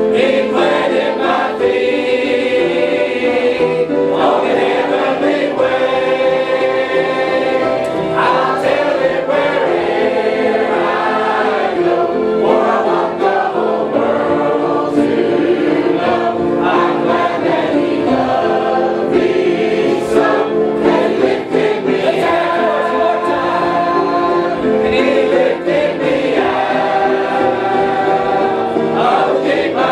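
Choir singing a gospel song, many voices together in long held notes.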